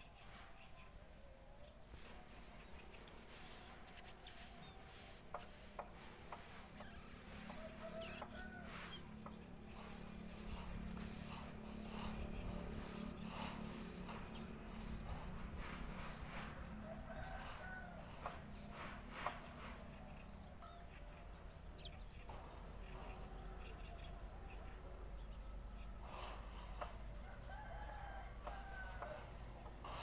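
Faint outdoor ambience: birds calling on and off over a steady high-pitched insect drone, with a low rumble for several seconds in the middle.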